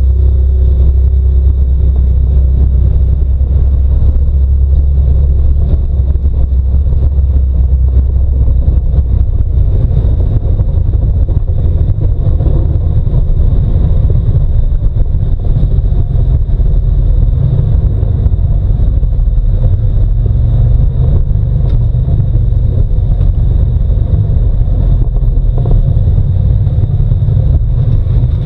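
Side-by-side UTV driving over a rocky dirt trail: a loud, steady, low engine and ride rumble.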